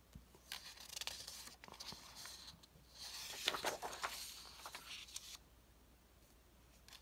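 Sheets of printed presentation paper rustling and sliding against each other as they are lifted and restacked, in several soft rustles that stop about five seconds in.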